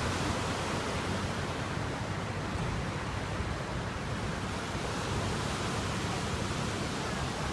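Steady rush of water pouring through a dam's open spillway gates, running high after heavy rainfall.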